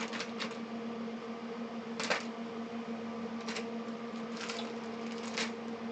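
Small electronic parts being sorted through by hand: a few scattered clicks and rustles over a steady background hum.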